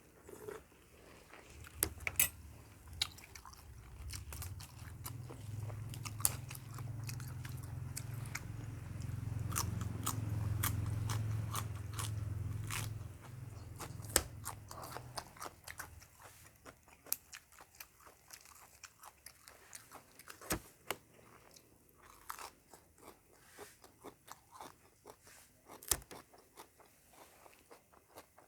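Close-up mouth sounds of biting and chewing crunchy food, with many sharp crunches. A low rumble swells in the first half and fades out about halfway through.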